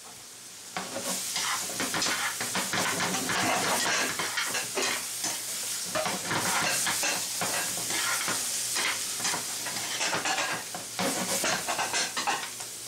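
Peppers and onions in tomato sauce sizzling in a frying pan. A metal slotted spoon, then tongs, stirs and scrapes through them, with many small clinks against the pan starting about a second in.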